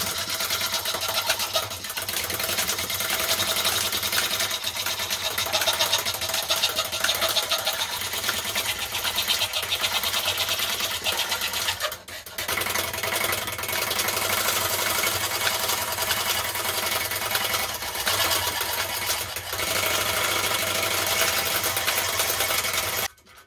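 Fret saw running at speed, its blade going up and down in a rapid, steady chatter. It falters briefly about halfway through and stops abruptly near the end.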